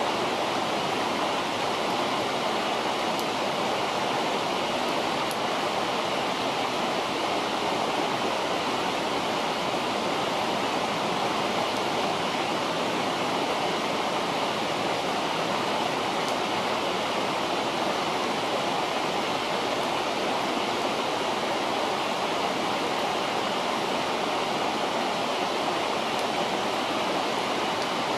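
River water flowing steadily, with a few faint crackles from the campfire.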